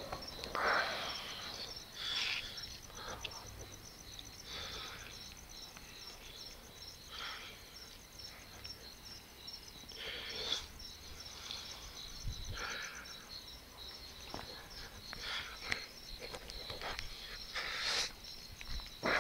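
Crickets chirping in a steady, rapid high-pitched pulse, with scattered short, faint sounds over it.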